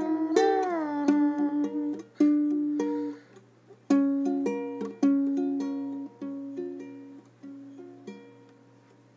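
Music: a plucked-string instrument playing a slow melody of single notes, with one note sliding down in pitch shortly after the start. The notes thin out and fade near the end.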